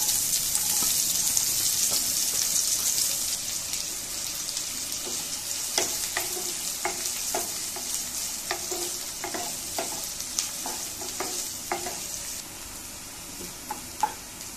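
Chopped onions sizzling in hot oil in a nonstick pan, loudest as they go in and easing off over the following seconds. From about six seconds in, a wooden spatula stirring them knocks and scrapes against the pan every second or so.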